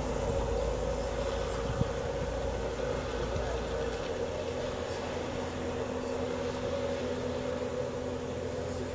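A steady mechanical hum with a low rumble under it; the rumble fades out about four seconds in while the hum carries on.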